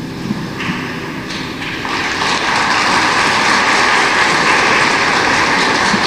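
Applause, with many hands clapping, starting about half a second in and building over the next second or two to a steady, loud clapping.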